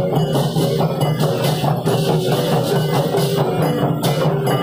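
A marching Okokan ensemble: many large wooden okokan bells clattering together in a driving rhythm, with hand cymbals crashing every half second or so and small gongs ringing pitched notes.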